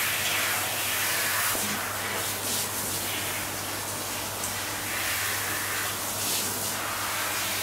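Handheld shower head spraying water onto a Shetland sheepdog's wet coat: a steady hiss that swells and eases as the spray moves.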